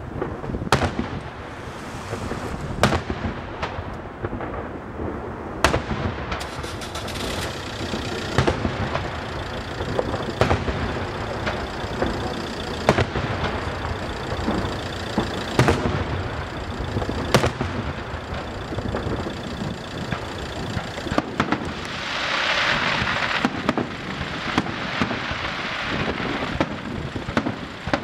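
Daytime fireworks display: aerial shells bursting with sharp bangs every second or two over continuous crackling. About 22 seconds in, a loud hiss rises for a couple of seconds.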